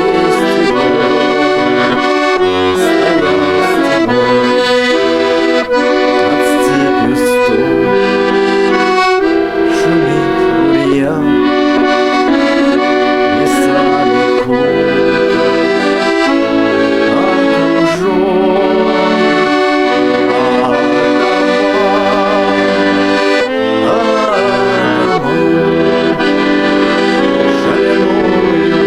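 Accordion playing a melody over sustained chords, in a traditional style.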